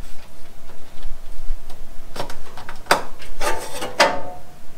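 The rear license plate and camera mount rubbing and scraping against the bumper as it is pushed back into place, a snug fit: a few short scrapes in the second half, the longest just before the end.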